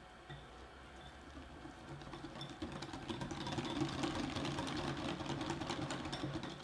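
Wire whisk beating a thick cocoa and coconut-oil mixture in a glass bowl: a rapid, steady clatter of the wires against the glass. It starts quiet and gets louder about two seconds in.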